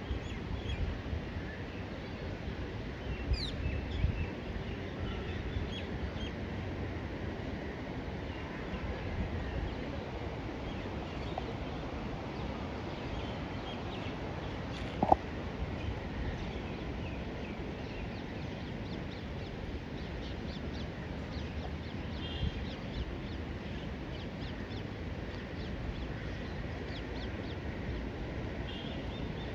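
Open-air ambience: a low rumble of wind on the microphone, with scattered faint bird chirps and calls. One short, sharp sound stands out about halfway through.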